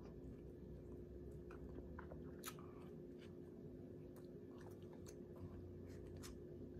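Faint close-up chewing of barbecue turkey tips and fries, with scattered sharp clicks and smacks through it, the loudest about two and a half seconds in.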